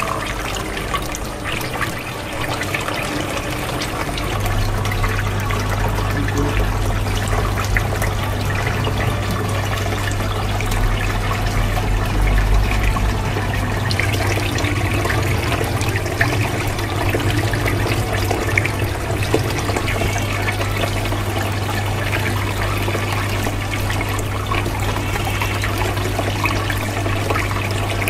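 Water trickling and splashing down a homemade three-tier bottle fountain fed by a small 12 V pump. A steady low hum comes in about four seconds in.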